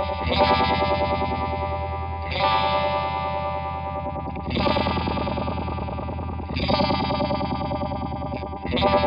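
Electric guitar played through an RFO Electronics Waterfall four-phase Uni-Vibe-style chorus/vibrato pedal: a chord struck about every two seconds and left to ring, each one pulsing with the pedal's swirling warble.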